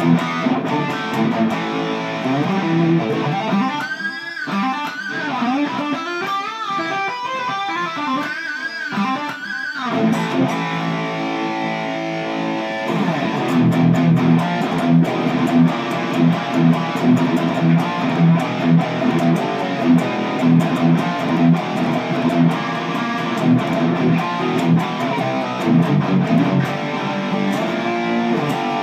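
Les Paul electric guitar played through an EVH 5150 amp. It starts with a lead line of bent notes with vibrato, then from about halfway through settles into a rhythmic riff of repeated low chords.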